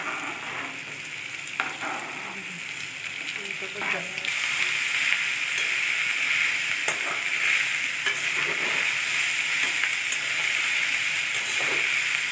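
Shredded boiled chicken and chopped vegetables sizzling in hot oil in a kadai while being stirred, with the stirring utensil scraping and knocking against the pan now and then. The sizzle gets louder about four seconds in.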